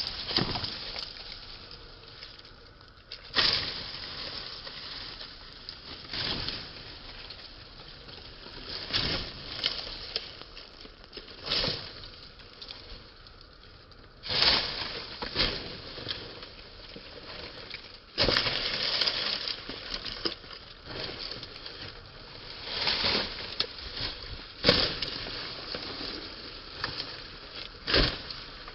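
Hand hoe chopping into damp soil and dry crop stubble, a dozen or so irregular strikes a couple of seconds apart. Some strikes are followed by a short scrape as earth is dragged and turned. The hoe is loosening only the planting strip for sowing maize by minimum tillage.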